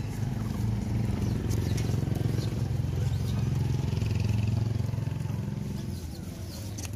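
A motor vehicle's engine running with a steady low hum, which fades away about six seconds in.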